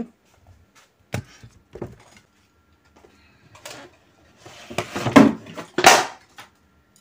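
Knocks and clattering with rustling as a ring light's tripod stand is picked up and handled: two sharp knocks in the first two seconds, then louder clattering around five to six seconds in.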